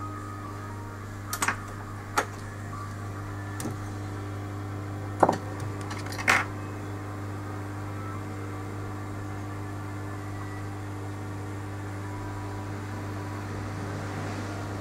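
Steady low electrical hum, like a bench device running, with about six sharp clicks and taps of small tools in the first half, then only the hum.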